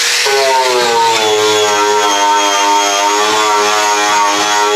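Electric angle grinder with a clean-and-strip disc, running under load against a steel floor pan to strip off a thin film of surface rust: a steady motor whine, its pitch wavering slightly as the disc is pressed in, over a rough scrubbing hiss.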